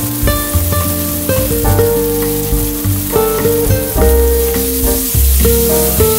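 Background music with held bass notes and a changing melody, over a steady sizzle of minced garlic, shallot and lemongrass frying in oil in a wok. Chopsticks start stirring the mixture near the end.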